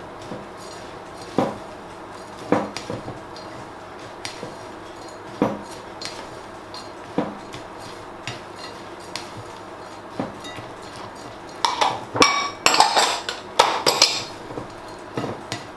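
A spatula stirring a dry mix of flour, oats, fruit and nuts in a glass mixing bowl, knocking against the glass now and then. About twelve seconds in there is a louder run of clinks and clatters as small glass bowls are stacked into a plastic bowl.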